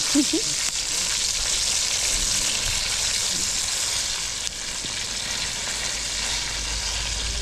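Floured chicken pieces deep-frying in hot oil: a steady sizzle.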